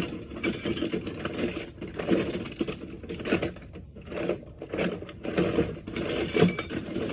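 Metal hand tools clinking and clattering irregularly as someone rummages through a toolbox for a socket extension.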